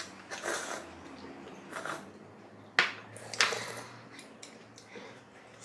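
Eating sounds over a bowl of spicy noodles: a few short slurps and mouth noises, with one sharp clink of a utensil about three seconds in.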